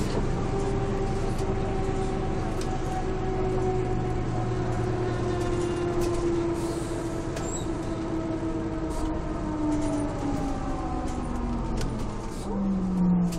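Mercedes-Benz OM447hA six-cylinder diesel and ZF 4HP590 automatic gearbox of a Jelcz M122MB city bus heard from inside, their whine slowly falling in pitch as the bus slows. A brief louder tone comes near the end, over light rattles.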